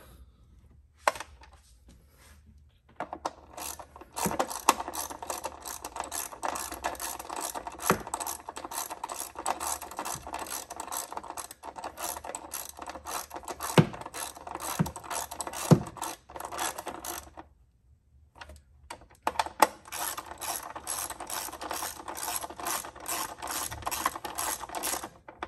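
Ratchet wrench with a 10 mm socket clicking rapidly as it tightens the screws of a plastic engine top cover. It comes in two long runs, separated by a pause of about two seconds, with a few sharper knocks in the middle of the first run.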